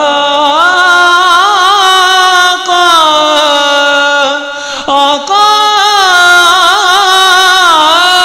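A singing voice in an Urdu devotional naat holding long, wavering, wordless notes between verses, with short breaks about two and a half and five seconds in.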